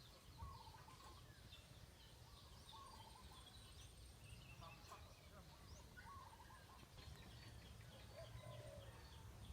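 Faint outdoor ambience: small birds chirping over and over and poultry calling in the distance, over a low steady rumble.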